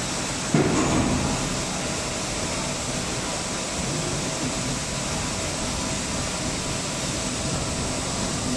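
Plastic injection moulding machine running with a steady mechanical noise, and a sudden thud about half a second in that dies away over about a second.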